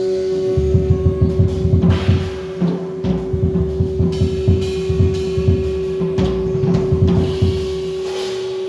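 Music: a steady ringing drone with a fast run of low drum beats over it, the drumming stopping near the end.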